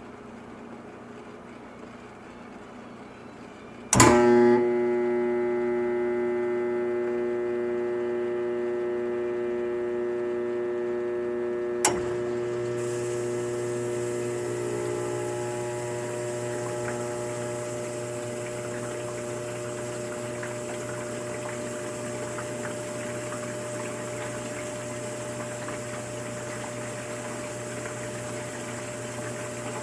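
Dishwasher cycling: a click about four seconds in as its pump motor starts with a loud hum of several steady tones, which slowly settles. A second click comes about twelve seconds in, and a steady hiss of water spray joins the running pump.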